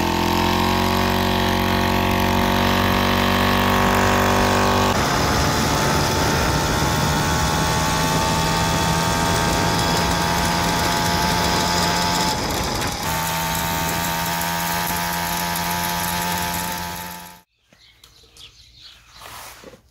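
Sparta moped's Sachs two-stroke engine revving up and held at full throttle while warm, the condition in which it crackles at high revs, a fault the owner put down to the piston and rings. The engine sound cuts off abruptly near the end, leaving faint outdoor quiet.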